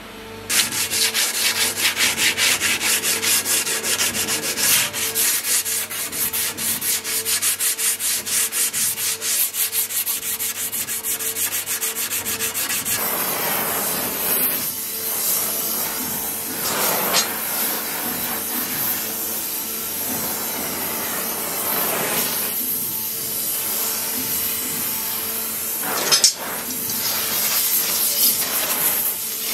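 Rapid, rhythmic rubbing or scraping strokes over a steady hum, then, about halfway through, the steady hiss of an oxy-acetylene torch flame played along a steel sword blade, swelling now and then, with one sharp pop near the end.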